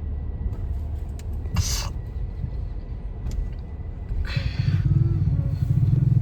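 Car engine idling with a low rumble heard from inside the car, broken by two short hissing noises. Past the middle the engine sound grows louder into a steady, pulsing drone.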